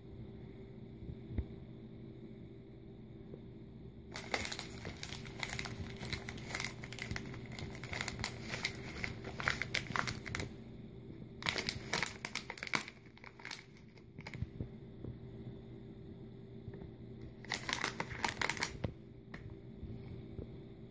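Plastic snack bag of Fritos corn chips crinkling as a kitten noses into it and pulls at it. It comes in three bouts: a long one starting about four seconds in, a short one around twelve seconds, and another near the end.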